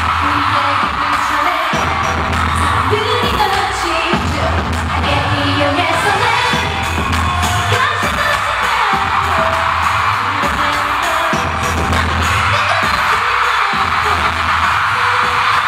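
K-pop song with female voices singing over a heavy, pulsing bass beat, played loud through an arena sound system, with a dense wash of crowd noise underneath.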